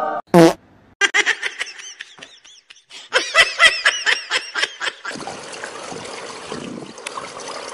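A person laughing in quick bursts, two runs of short rising-and-falling "ha" sounds, after a brief loud cry right at the start. From about five seconds in there is only a steady outdoor hiss.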